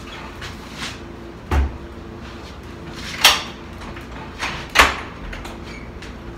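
Apartment door locks and latch being worked open by hand: a series of about five sharp metallic clicks and clunks. The two loudest come about three and five seconds in, and the door then swings open.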